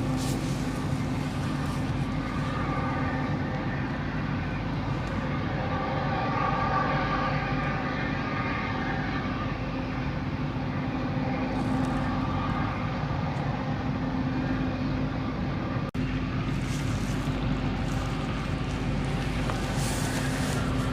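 Steady low drone with a constant hum running under it, the noise of a nearby power plant. It drops out for a split second about three-quarters of the way through.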